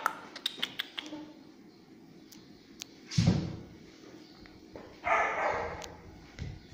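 A puppy barks once, loudly, about three seconds in, and a shorter, noisier sound follows about two seconds later. A few light clicks come in the first second.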